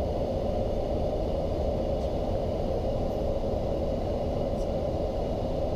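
Steady, low rushing noise inside a Boeing 737-800 flight deck in descent: the airflow and cabin noise of the airliner in flight, even in level throughout.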